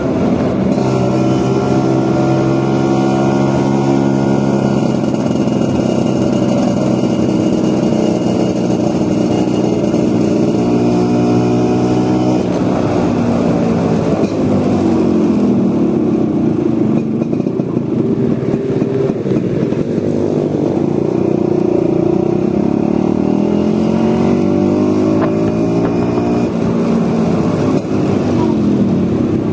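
Vespa scooter engine running under way, its note climbing and dropping several times as the scooter speeds up and slows.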